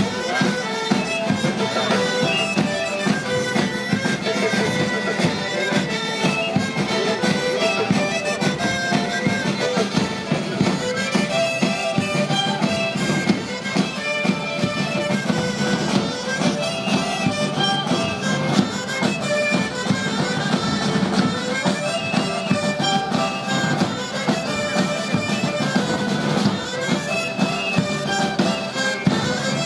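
Traditional Basque folk dance music played on reedy wind instruments: a quick, busy melody over a steady low drone.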